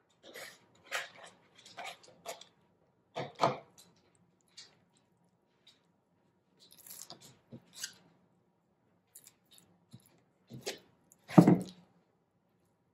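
Hands rubbing a wet Dijon mustard and herb rub onto a raw sirloin beef roast on a plastic cutting board: short, irregular rubbing and handling sounds with gaps between them, and a louder thump near the end.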